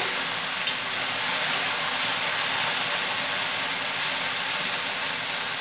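Sliced okra sizzling in oil in a steel kadhai over a full gas flame, a steady frying hiss, with one light tap of the metal spatula against the pan under a second in.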